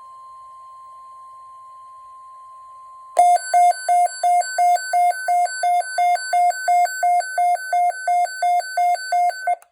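Emergency alert tones announcing a severe thunderstorm watch. A faint steady tone sounds for about three seconds, then a loud electronic two-tone alarm takes over, alternating between a low and a high note about three times a second, and cuts off at the end.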